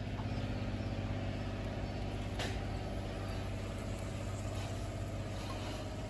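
A steady engine hum runs under a thin stream of water pouring into a metal pot fitted with a perforated steamer plate. One sharp click comes about two and a half seconds in.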